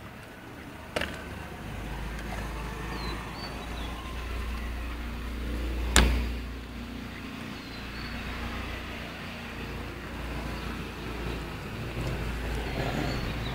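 Low rumble of road traffic, with a sharp click about six seconds in and a few faint high chirps.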